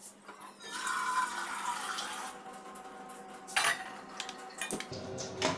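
Water running into a steel saucepan from a wall-mounted water purifier's tap for about a second and a half, then steel pots and utensils clattering, with a few sharp knocks.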